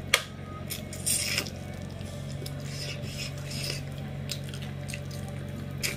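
Close-up mouth eating sounds, with wet chewing and smacking of fish curry and rice, and fingers scraping food across a steel plate. The clicks and short wet bursts are scattered, the sharpest one just after the start, over a steady low hum.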